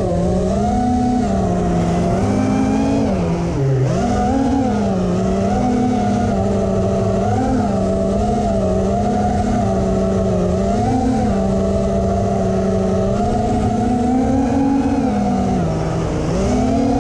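Brushless motors and propellers of an FPV quadcopter whining, heard from the onboard camera, the pitch rising and falling with the throttle. The pitch drops sharply a few seconds in and then climbs back, with another dip and rise near the end, over a rushing noise.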